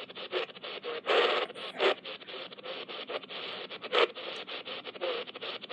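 Shortwave static and crackle from the Raynic CR-1009 emergency radio's speaker as its tuning dial is turned, with three short louder bursts about one, two and four seconds in; no station comes in.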